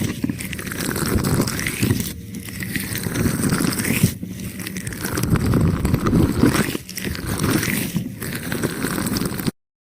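Aloe vera gel squished and rubbed close against the microphone: a dense, wet, crackling scrape that swells and dips unevenly, then cuts off suddenly near the end.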